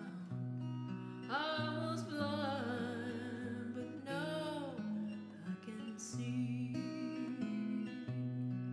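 Background music: a song with strummed acoustic guitar and a singing voice holding long wavering notes, about a second in and again around four seconds.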